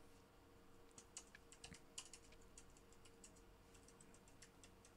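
Faint, irregular clicking of computer keys, over a faint steady hum.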